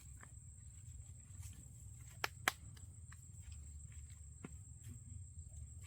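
Cassava plants being pulled up and handled: rustling and light footsteps, with two sharp cracks in quick succession a little over two seconds in.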